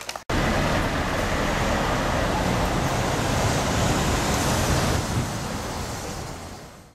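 Steady roar of city street traffic that starts abruptly and fades out near the end.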